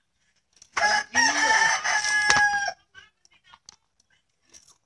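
A rooster crowing once: a call of about two seconds that ends on a long held note and stops abruptly. A few faint clicks follow.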